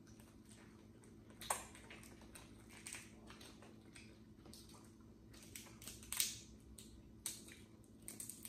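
Boiled crawfish shells cracking and crackling as they are peeled by hand: irregular small cracks and clicks, with a sharper crack about a second and a half in and another about six seconds in.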